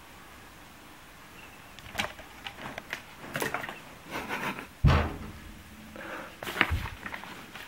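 Scattered knocks and rustling, with a heavy thump about five seconds in and another sharp knock near the end.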